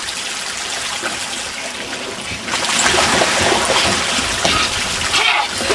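Water running down an outdoor pool water slide, a steady trickling rush. About two and a half seconds in it grows louder as a person comes down the chute through the water.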